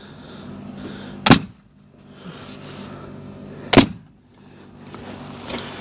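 Pneumatic coil roofing nailer firing twice, about two and a half seconds apart, nailing gutter apron to the roof edge.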